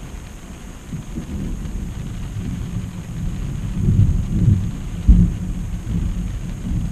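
Thunder rolling: a low rumble that builds and swells about four seconds in, with a stronger crack of rumble about five seconds in, heard from inside a car.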